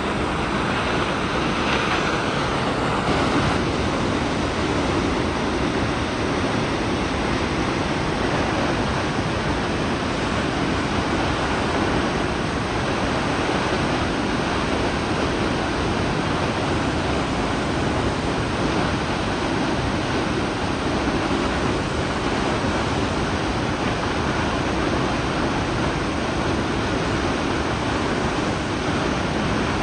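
Steady rushing of water from a waterfall, an even, unbroken roar.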